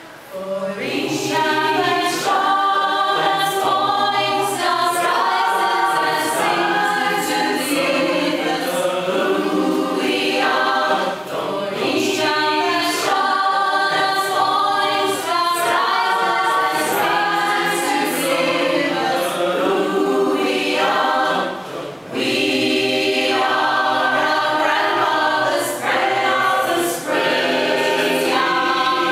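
Mixed choir of men's and women's voices singing in harmony, coming in about half a second in, with brief dips near eleven and twenty-two seconds.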